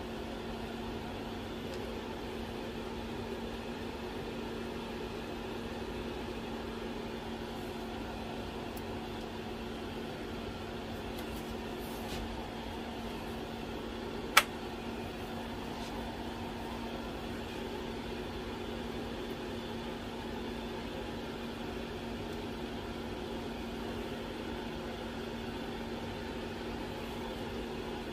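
Steady electrical hum of a 946C hot plate's cooling fan, with one sharp click about halfway through as its rocker power switch is flipped.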